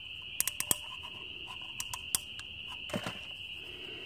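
Crickets trilling steadily in the background, with a few sharp little clicks and taps from hands handling the oil filter housing cap while a new O-ring is fitted onto it, in small clusters about half a second and two seconds in.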